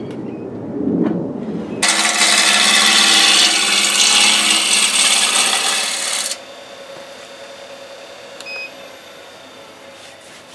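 A gouge cutting into a spinning golden cypress blank on a wood lathe, roughing it round. The loud rasping cut starts abruptly about two seconds in and stops abruptly about four seconds later, with a quieter low rumble before it and a faint steady whine after.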